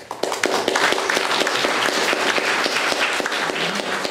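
Audience applauding: many hands clapping together, breaking out all at once.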